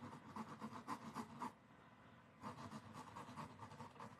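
Erasable-ink FriXion pen faintly scratching across a chalk-painted canvas board in quick short sketching strokes, in two spells with a pause of about a second between them.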